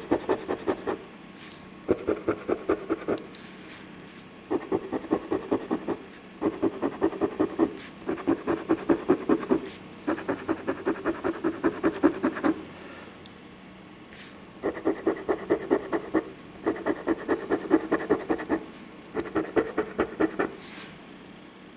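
A coin scratching the coating off a lottery scratch-off ticket: quick back-and-forth strokes, several a second, in runs of one to two seconds with short pauses between.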